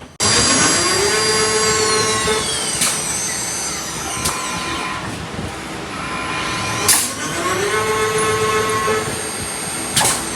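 CNC turning machine (lathe) running, machining brass parts: a pitched spindle whine rises and then holds at the start of each cycle, twice, about seven seconds apart, with sharp metallic clicks in between.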